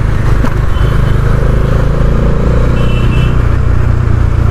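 Bajaj Dominar 400 motorcycle ridden steadily at low city speed: its single-cylinder engine running under a dense, steady road rumble. Faint short high tones come twice, about a second in and near three seconds.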